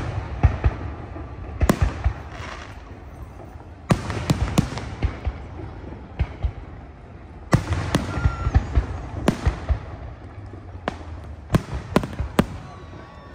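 Aerial fireworks shells bursting overhead: sharp bangs in irregular clusters, some in quick succession, with a low rumble rolling on between them.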